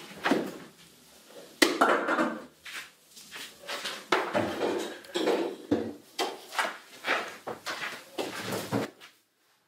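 Household kitchen clatter of crockery, pots and utensils: a sharp knock a second and a half in, then a run of irregular knocks and scrapes.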